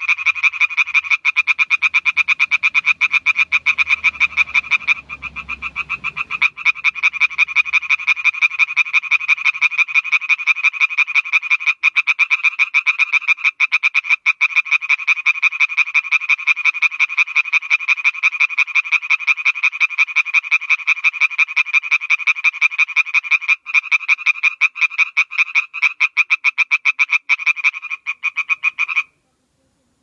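Male Oriental tree frog (Hyla orientalis) calling with its vocal sac inflated: a long, loud, fast run of sharp croaking pulses, its advertisement call. It falters briefly about five seconds in and stops abruptly about a second before the end.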